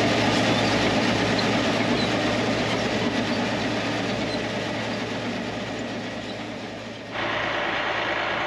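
TD-15C crawler dozer running, its diesel engine and steel tracks clattering in a steady rhythm, fading away over several seconds. About seven seconds in it cuts abruptly to a different, steadier engine sound of the dozer idling.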